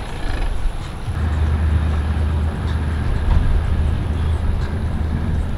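A Sea-Doo jet ski's engine running at low speed, a steady low drone that comes in about a second in and holds.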